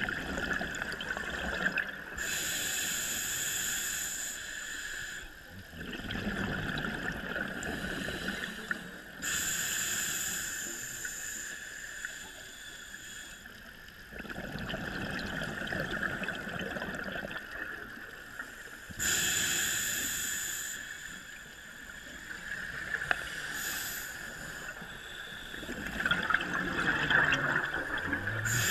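Scuba diver breathing through a regulator underwater: a hissing inhale, then a gurgling rush of exhaled bubbles, about three breaths, one every eight to ten seconds.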